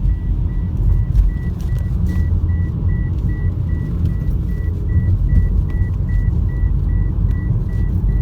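Car in motion heard from inside the cabin: a steady low rumble of road and engine noise, with a high electronic beep repeating evenly about three times a second.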